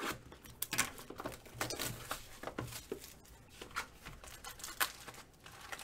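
A trading card pack being opened and its cards handled: the wrapper crinkling and tearing, with quick irregular rustles and clicks of cards sliding against each other.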